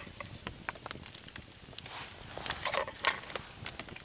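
Wood campfire crackling in irregular sharp clicks and pops, with a denser flurry of crackle and rustling about two and a half seconds in.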